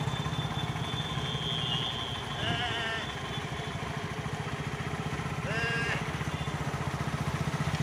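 Motorcycle engine running steadily under way, its exhaust beating in a fast, even pulse. Two short calls cut in over it, about two and a half and five and a half seconds in.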